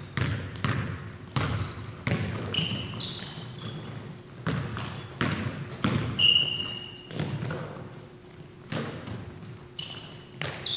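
Basketball bouncing on a hardwood gym floor during play, in irregular strokes that ring on briefly in the hall, with short high sneaker squeaks from players cutting on the court.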